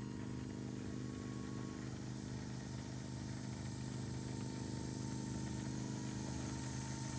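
Brushless electric motor and propeller of a 3D-printed Big Bobber RC plane running at low throttle as it taxis. It gives a steady hum with a thin high whine above it, growing slightly louder near the end.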